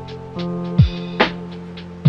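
Background music: held chords over a drum beat, with a deep kick and a snare hit.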